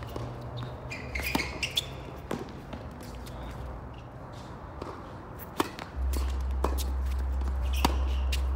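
Tennis ball bouncing and players' footsteps on a hard court, a scatter of sharp separate knocks with a few short shoe squeaks early on. A low steady hum comes in about six seconds in.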